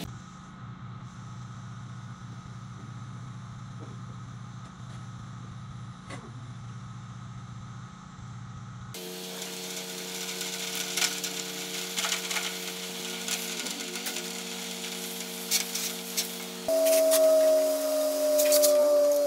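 Pressure-washing rig running steadily while the wand sprays water onto house siding and patio, a mechanical hum under the hiss of the spray. The sound changes abruptly twice, and the last few seconds are louder, with the spray spattering.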